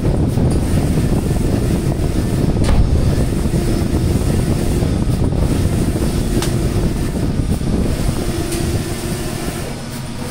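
Large-format flex printer running, a steady mechanical noise with a faint hum that comes and goes every couple of seconds.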